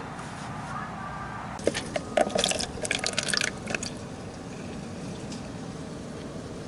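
Used peanut oil draining out of a lawn mower's crankcase into a container, with a cluster of clicks and knocks from handling the mower about two seconds in. The oil is being drained for an oil change.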